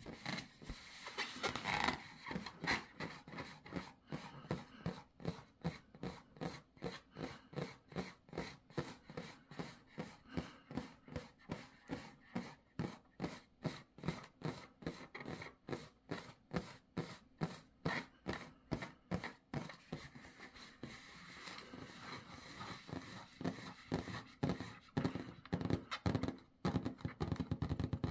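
Claws scratching a rubber balloon in a long, regular series of scrapes, about two or three strokes a second, coming quicker and denser near the end.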